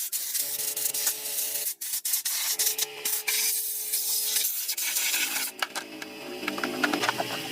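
Rubbing and scraping on a surface, with a few sharp clicks. The sound changes abruptly about two seconds in and again about five and a half seconds in.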